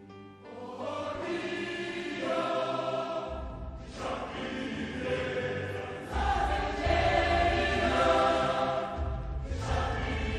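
Background music sung by a choir holding long chords, with a deep bass part coming in about three seconds in and new phrases starting around four, six and nine and a half seconds in.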